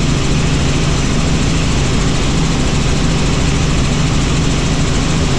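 Helicopter in flight: steady, loud engine and rotor noise with a constant low hum.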